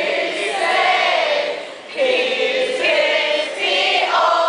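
A group of young people singing together in chorus, breaking off briefly just before two seconds in and then starting again.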